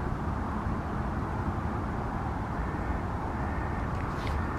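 Steady low rumble and hiss of outdoor background noise, with a brief faint high rattle about four seconds in.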